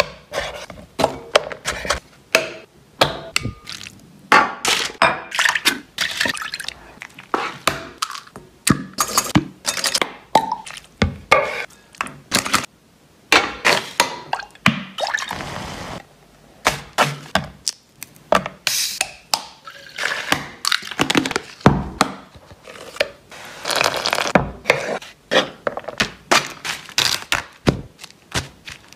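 Close-up kitchen prep sounds: a knife cutting and tapping on a wooden cutting board, with many separate sharp knocks and taps, and a paper sugar bag rustling as granulated sugar pours into a stainless steel pot partway through.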